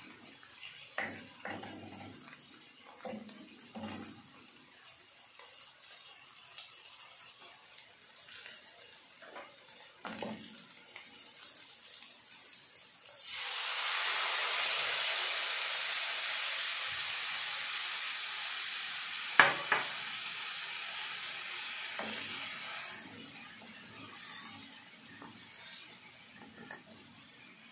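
Scattered clinks and knocks of utensils and a pan, then about halfway through a sudden loud sizzle as something goes into hot oil, fading slowly over several seconds, with two sharp clicks of a utensil on the pan in the middle of it.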